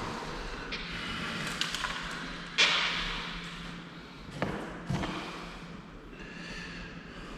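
A few sharp knocks and thumps from work on a pocket door and its handle hardware. The loudest comes a little after two seconds in, and two more follow close together about two seconds later.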